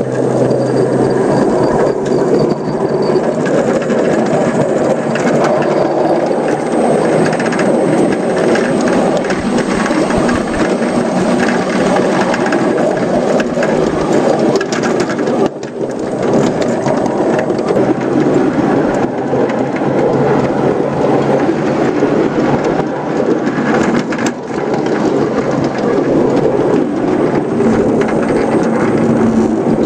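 A 5-inch gauge ride-on model Whitcomb locomotive running along its track, heard from on board as a steady, dense rumble of wheels on rail and drive, dipping briefly a couple of times.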